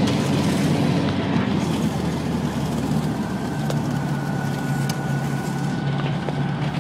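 Single-engine light propeller aircraft's engine and propeller running steadily, heard from inside the cockpit as the plane rolls along a grass airstrip.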